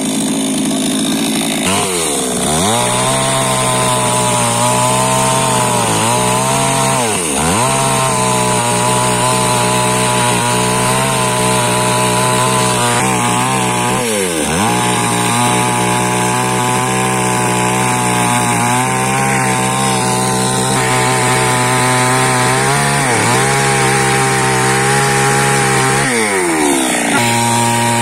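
Two-stroke chainsaw running at high speed while cutting wood. The engine note sags sharply several times as the chain bogs down in the cut, then climbs back. Near the end it settles to a lower speed.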